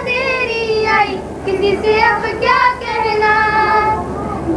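Children singing a song, with long held notes between shorter phrases.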